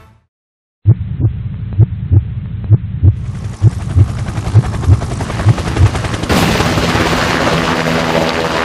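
Sikorsky Black Hawk helicopter: deep, uneven thumps a few times a second over a steady rumble, then from about six seconds a louder, fuller rotor and engine noise as it comes closer.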